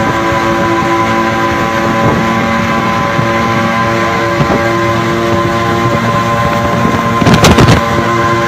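Suzuki two-stroke pickup engines running flat out at a steady, unchanging pitch at highway speed. A short cluster of loud sharp cracks comes near the end.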